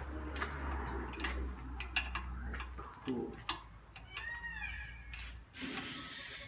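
Hand tools and bolts clinking and tapping against the metal of an engine and its engine stand in scattered sharp knocks, over a low hum that stops about five and a half seconds in.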